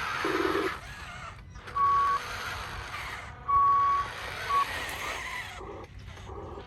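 Reversing beeper on a radio-controlled truck: a steady single-pitched beep repeating about every second and a half, the last one cut short. Near the start there is a noisy whir and a short lower buzz, and the buzz comes again near the end.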